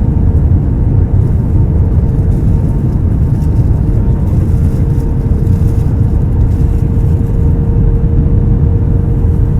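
Airbus A321 cabin noise during landing: a loud, steady low rumble with a constant hum from the engines running through it.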